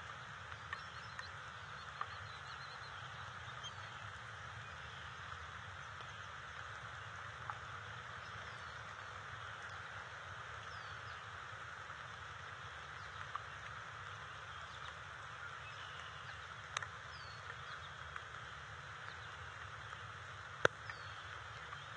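Steady outdoor hiss with a few faint, short high bird chirps and a handful of sharp clicks, the loudest about a second before the end.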